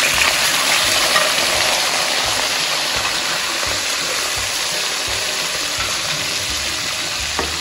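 Raw chicken pieces sizzling as they hit hot oil in an aluminium kadhai, loudest in the first second or so and then settling into a steady sizzle while a steel spatula stirs them. A short knock near the end.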